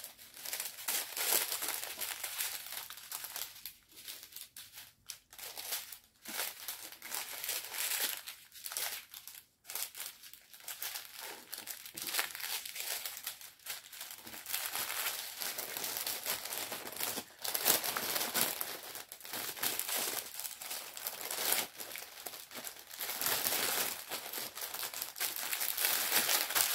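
Small plastic bags of diamond painting drills crinkling and rustling as they are handled and sorted, in irregular handfuls with short pauses.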